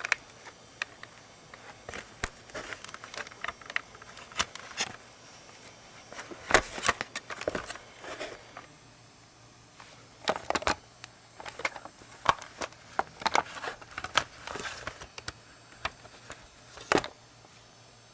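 Irregular clicks, knocks and scrapes of the plastic parts of a Dyson vacuum's motorised floor head being handled and taken apart, with a few louder clusters of clatter scattered through.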